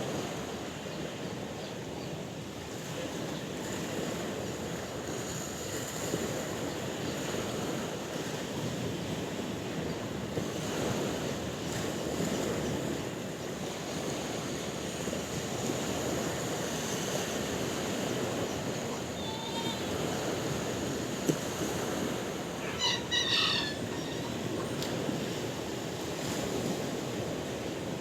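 Sea waves washing steadily on a shore. A brief pitched animal call comes about two-thirds of the way in, and a louder one follows a few seconds later.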